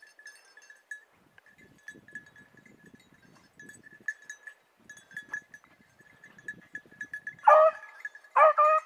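Beagle baying twice near the end, two loud drawn-out calls a second apart: a hound giving tongue while working a hare's scent. Before the calls there is faint rustling.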